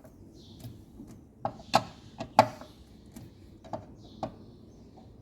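Sharp, irregular clicks and knocks of tools and metal parts being handled during work on a washing machine's direct-drive motor, the loudest about two seconds in.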